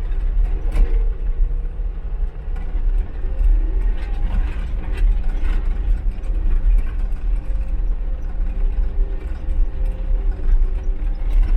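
John Deere 324E skid steer's diesel engine running steadily with a low rumble, with a few short knocks and clatters from the machine at work.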